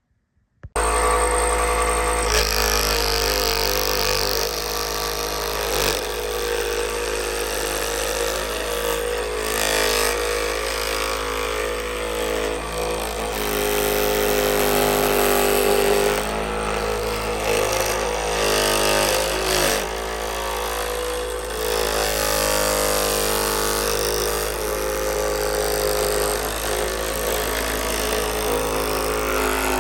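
A child's electric scroll saw switched on less than a second in, then running steadily with a loud mechanical buzz and low hum as its blade reciprocates, cutting a piece freehand. The owner thinks it needs oiling and perhaps a new blade.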